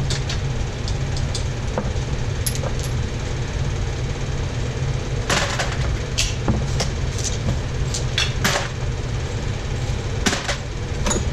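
Loose metal engine parts and hand tools clanking and knocking now and then, over a steady low hum.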